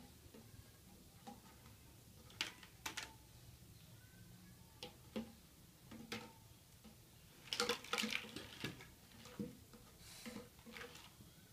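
Light plastic knocks and clatters as a plastic basket, an empty plastic water bottle and toys are handled, with a busier run of clatter about eight seconds in, around when the basket is turned upside down.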